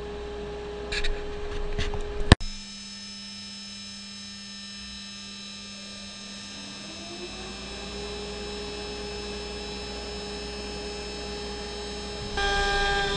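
CNC router spindle humming steadily while not cutting, with a sharp click about two and a half seconds in. Around seven seconds in its pitch rises as it speeds up, and near the end the sound grows louder.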